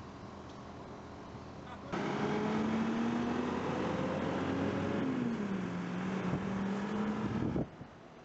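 A vehicle engine running, cutting in suddenly about two seconds in. Its pitch rises slightly, drops about halfway through and then holds steady, before the sound cuts off abruptly near the end.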